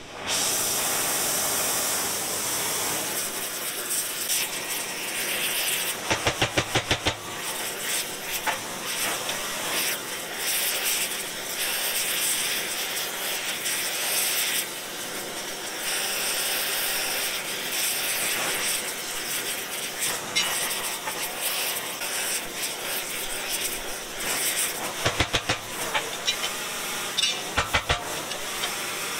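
Oxy-fuel heating torch burning with a large open flame, a steady hiss, played over a steel dump-truck tailgate hinge to heat it for straightening. Short bursts of rapid fluttering break in about a quarter of the way in and again near the end.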